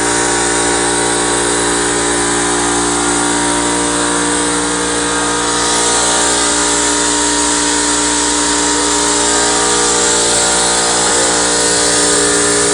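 Homemade CNC plasma cutting machine running: a steady hiss with a constant hum underneath, unchanging throughout.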